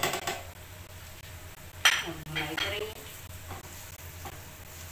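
Ground spices tipped into hot oil and ginger-garlic paste in a nonstick frying pan, with a few quick knocks of the spice containers at the start and a sharp clink about two seconds in, then a plastic spatula stirring the spices through the sizzling oil.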